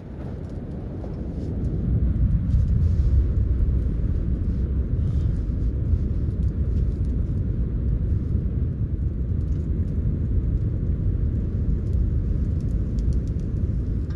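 Strong wind buffeting the microphone: a loud, steady low rumble that builds over the first two seconds and then holds.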